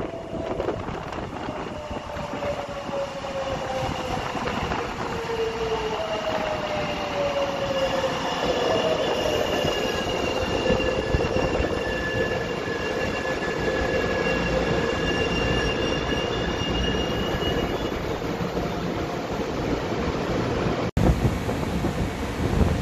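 Taiwan Railways electric multiple-unit commuter train pulling into a station and slowing: a rumble with a whine that falls in pitch, then a high steady squeal as it brakes along the platform. The sound breaks off abruptly about 21 seconds in.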